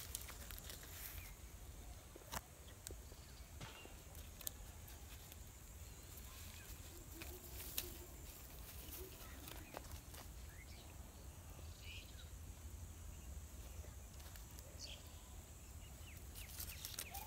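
Quiet outdoor ambience: a steady low rumble, scattered small clicks and rustles of leaves being handled, and a few faint short bird chirps in the second half.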